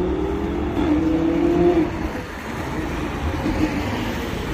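A car's engine revving as it accelerates past, its note rising slightly and peaking near two seconds in before dropping away, followed by a steady low engine rumble from traffic on the road.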